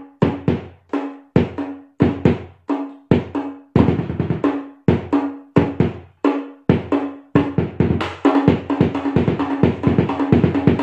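Hadroh bass drum struck with a mallet together with a tam hand drum slapped by hand, playing a steady rhythmic pattern with each stroke ringing on a low pitch. The strokes come faster and denser over the last few seconds.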